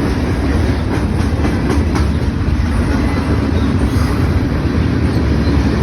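Norfolk Southern manifest freight train rolling past: a steady loud rumble of wheels on rail, with a few faint clicks over the rail joints.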